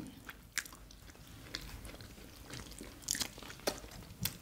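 Close-miked eating sounds: two people chewing fried plantain and soft agege bread, with scattered wet mouth smacks and clicks, a few more together about three seconds in.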